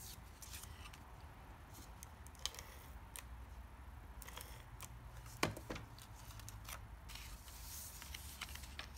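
Faint paper handling: a tape runner drawn along small strips of patterned paper to lay adhesive, with rustling of paper and cardstock and a few short clicks, the sharpest about five and a half seconds in.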